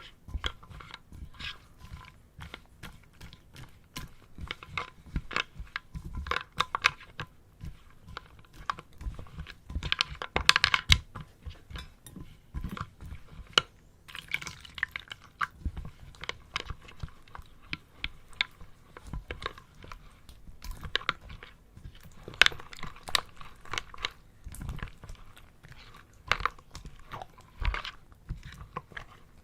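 Slime being squished and worked, giving a dense run of irregular sticky pops and crackles.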